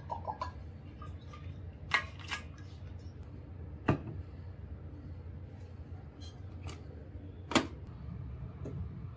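A few sharp clicks and taps of small hard objects, scattered and irregular, the loudest about two, four and seven and a half seconds in, over a steady low hum.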